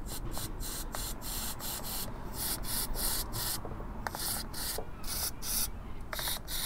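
Brisk back-and-forth scrubbing on a motorcycle brake caliper's exposed pistons, about three strokes a second with two short pauses, cleaning off grime and crud.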